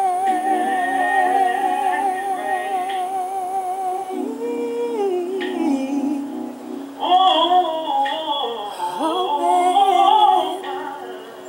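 Gospel singing in harmony: a long held note with vibrato over other voices holding lower notes, then louder sung phrases about seven seconds in that fade away near the end.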